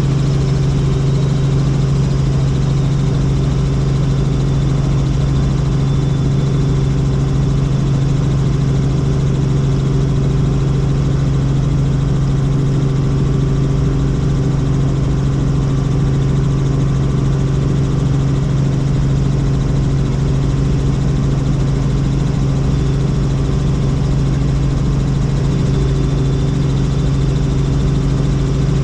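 Helicopter in steady flight: a loud, unchanging drone with a strong low hum from the engine and rotors.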